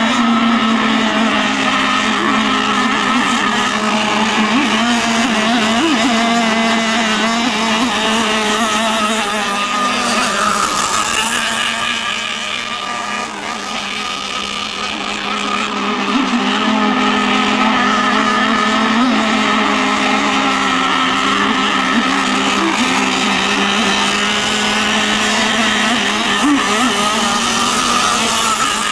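Nitro engines of 1/8-scale radio-controlled racing hydroplanes running flat out, a steady high-pitched buzzing drone with small rises and falls in pitch. It drops off a little about twelve seconds in and comes back up about four seconds later.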